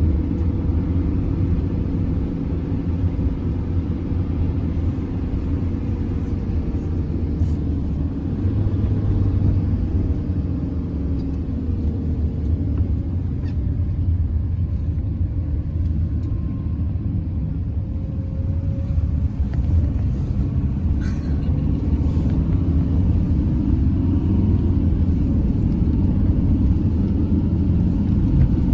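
Steady engine and road rumble of a moving vehicle, heard from inside it, the engine note drifting slowly up and down.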